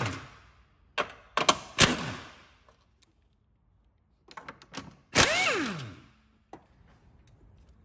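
Pneumatic impact wrench undoing 15 mm engine mount bolts in short bursts: clicks and brief runs about one and two seconds in, then a longer burst about five seconds in. Each burst ends in an air-motor whine that falls in pitch as the wrench spins down after the trigger is let go.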